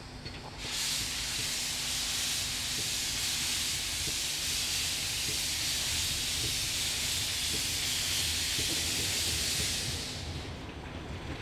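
Narrow-gauge steam locomotive's open cylinder drain cocks blowing steam in a loud, steady hiss as it moves off slowly, clearing condensed water from the cylinders. The hiss comes on suddenly about a second in and dies away near the end, over a low rumble.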